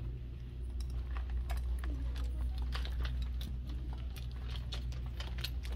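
Footsteps on a hard floor: light, irregular clicks and taps over a steady low hum.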